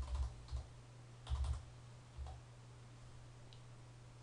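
Computer keyboard keystrokes: a few separate taps, a quick run of several about a second and a half in, and a last tap a little after two seconds, over a steady low hum.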